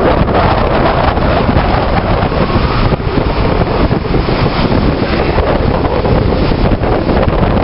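Strong wind buffeting the microphone over the continuous rush of rough sea waves.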